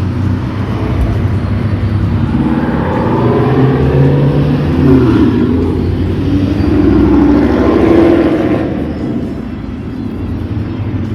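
LS V8 engine of a swapped Chevy S10 running, revved up and back down twice in the middle, then settling to a lower, quieter idle near the end.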